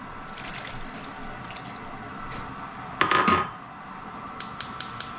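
Boiling water poured from a ceramic bowl into a frying pan of pan-fried fish and sauce, a steady liquid pour. About three seconds in comes a loud, short ringing clink, and near the end a quick run of sharp clicks from the gas range's burner igniter.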